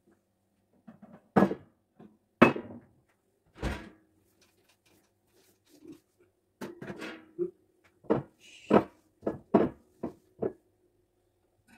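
Glass bottles and a wire dish rack being picked up and set down on a granite kitchen countertop during wiping: a string of about ten irregular knocks and clunks.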